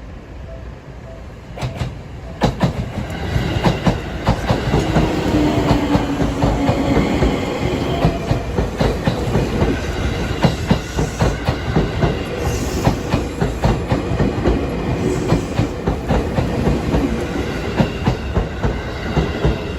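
Seibu Line electric train passing close by, its wheels clacking over the rail joints in a long run of clicks, with a low whine in the middle. At the start a level-crossing warning bell rings about twice a second; the train's noise covers it about two seconds in.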